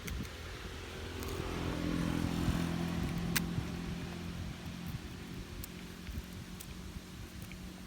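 An engine hum that swells and then fades over several seconds, like a motor vehicle passing. A single sharp click sounds near the middle.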